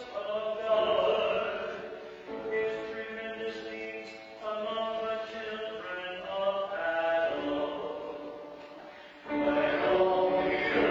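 Responsorial psalm sung in a chant-like setting by a male cantor with keyboard accompaniment, in held notes that grow louder about nine seconds in.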